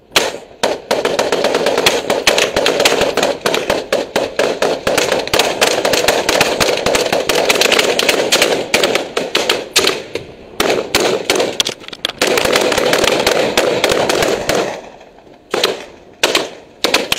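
Rifle gunfire in a dense, rapid stream of overlapping shots for about fourteen seconds, broken twice by short pauses, then thinning to a few separate shots near the end.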